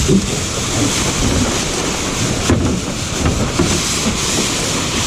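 Water rushing along the hull of a Lightning sailing dinghy under way, with strong wind buffeting the microphone as a steady loud hiss and rumble. A single short knock or splash comes about two and a half seconds in.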